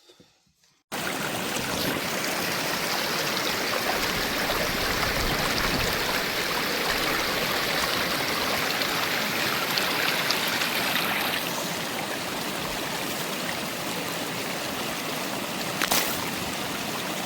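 Stream water rushing steadily, starting abruptly about a second in, with one brief knock near the end.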